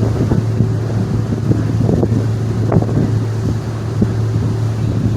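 Staten Island Ferry's engines droning with a steady low hum, with wind rumbling on the microphone.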